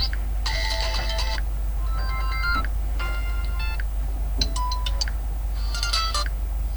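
Ringtone previews from a Tecno Camon 18 Premier smartphone's speaker: about five short snippets of different tones, one after another, each cut off after under a second. A steady low hum runs underneath.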